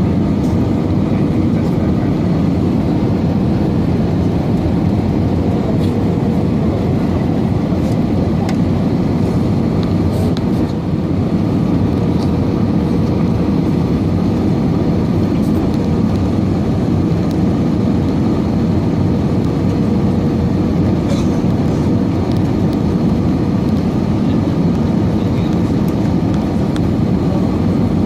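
Airbus A320 cabin noise in flight: a steady rush of engines and airflow, with a faint steady hum running through it.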